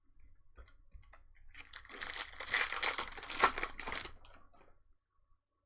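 Foil trading-card pack wrapper being torn open and crinkled, a dense crackling rustle lasting about two and a half seconds, starting after a few faint clicks and stopping near the end.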